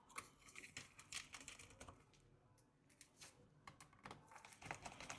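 Faint, scattered small clicks and taps of hands working inside an open MacBook Pro, connecting the CPU fan's cable to the logic board, with a short quiet gap about two seconds in.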